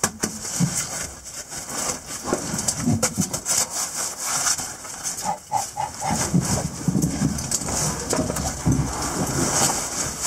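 A caver's oversuit and gloves scraping and rubbing against the cave rock as he wriggles up through a tight vertical squeeze, with short grunts and heavy breaths of effort.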